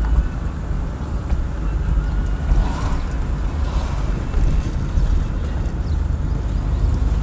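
Steady low rumble of a car's engine and tyres heard from inside the moving car, with wind noise on the microphone.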